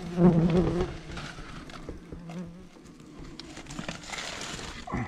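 Wasps buzzing around their nest, one flying close with a steady buzz that is loudest in the first second and fades out after about two and a half seconds.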